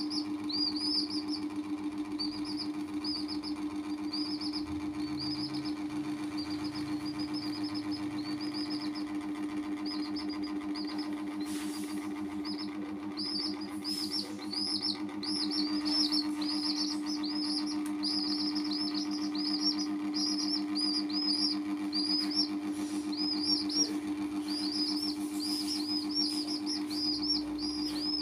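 Baby chicks peeping, short high cheeps in quick runs with a brief pause about halfway through. A steady low hum runs underneath.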